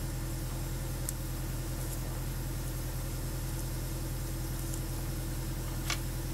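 Steady drone of a compressor blowing the water out of a lawn sprinkler system, with two faint clicks of aluminium armature wire being handled, about a second in and near the end.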